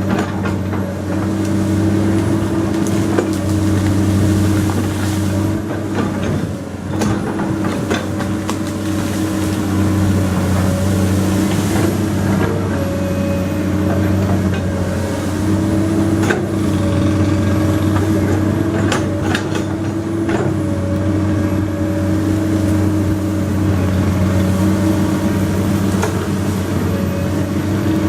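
Komatsu PC200 hydraulic excavator's diesel engine running steadily under working load, its pitch and level swelling and easing as it digs, with a number of sharp metallic knocks from the machine at work.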